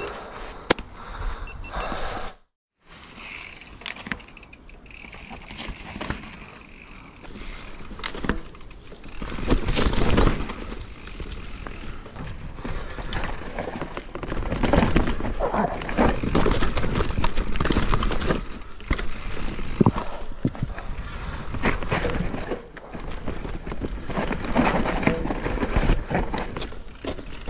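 Mountain bike rattling down a steep, rocky trail: tyres knocking over rocks and roots, with the chain and frame clattering. The sound cuts out briefly about two and a half seconds in, and the clatter gets denser and louder from about ten seconds on.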